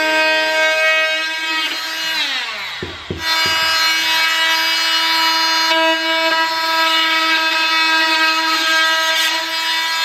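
Dremel Multi-Max MM45 oscillating multi-tool with a drywall jab saw blade cutting drywall: a loud, steady buzzing whine. About two to three seconds in it winds down in falling pitch, with a couple of short knocks. Then it starts up again and runs steadily at the same pitch.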